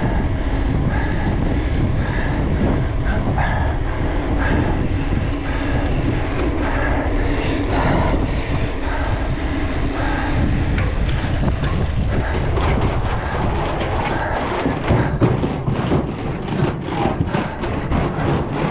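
Mountain bike being ridden over rough ground, picked up by a GoPro on the bike or rider: a steady rumble of tyres and wind on the microphone. From about two-thirds of the way through, dense rattling knocks come from the bike jolting over bumps.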